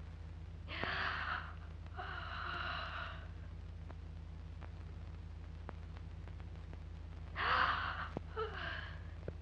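Two long, audible yawns, one about a second in and a louder one near the end from a boy. Each is a breathy intake followed by a drawn-out voiced sigh.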